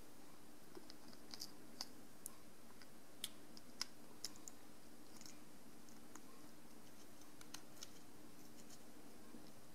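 Faint, scattered light clicks and scrapes of small parts being handled: a circuit board fitted into a plastic case and small screws turned with a small screwdriver, over a faint steady hum.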